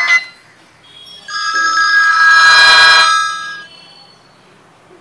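A Lava A7 Torch keypad phone's loudspeaker playing a built-in ringtone preview. Several held electronic tones start about a second in, swell, then fade out before the end. Just at the start, the previous ringtone preview is cut off.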